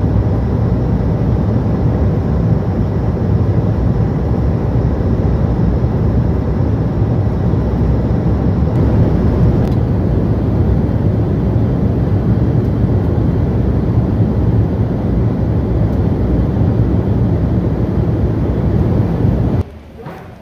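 Steady cabin noise of a jet airliner in cruise, engine and airflow noise heard from a window seat, loud and even; it cuts off abruptly near the end.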